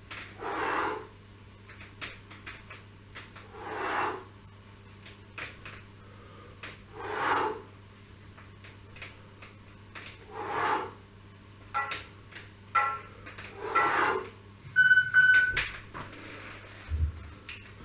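Hard, rushing exhalations about every three seconds, one with each pull-up of a suspension-strap row, with small clicks between them. A brief high tone sounds near the end, followed by a low thump.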